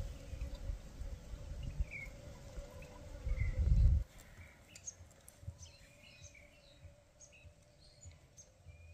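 Wild birds chirping in scattered short calls over a steady faint hum. A low rumble runs underneath until it cuts off suddenly about four seconds in.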